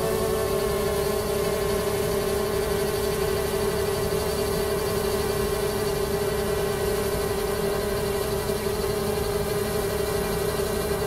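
Xiaomi Mi Drone 4K quadcopter hovering, its propellers giving a steady buzzing hum with one strong tone and fainter overtones above it.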